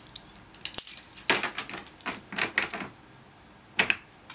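Metal jingling and clicking of a dog's leash clasp and collar hardware as the leash is clipped on, with a sharper jingle about a second in and a single click near the end.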